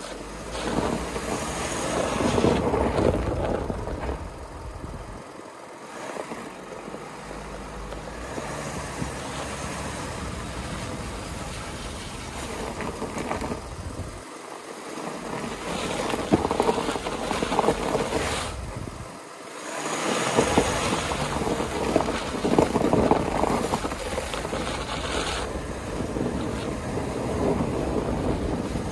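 Kumho WinterCraft Ice WS31 winter tyres on a Volkswagen Amarok V6 rolling over snow and slush at driving speed: a steady rushing noise of tyres and wind rather than engine note. It swells and eases, with the low rumble dropping out briefly a few times.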